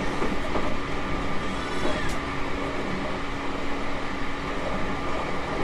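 Running sound of a JR Kyushu 813 series 200 subseries electric train, which has a Toshiba GTO VVVF inverter drive: a steady rumble from the wheels and running gear, with a steady hum running through it.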